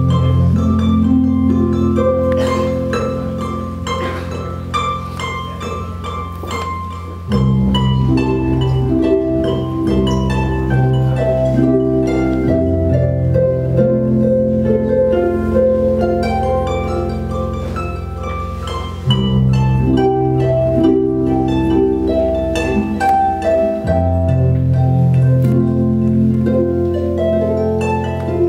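Lyon & Healy concert grand pedal harp, played live through effects: plucked notes and arpeggios over a sustained low bass layer. The bass shifts suddenly three times, about a quarter, two thirds and five sixths of the way through.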